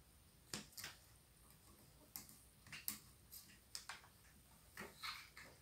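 Faint, scattered ticks and soft rustles of paper as a child's hands handle a picture book and turn a page, with the page turning near the end.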